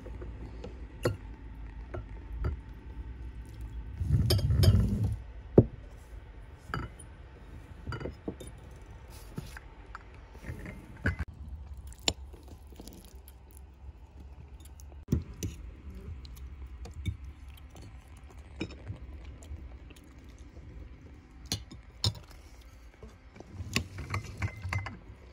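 Tableware clinking: a glass tea glass set on its china saucer and a fork scraping and tapping on a china plate, in scattered sharp clinks, over a low steady rumble.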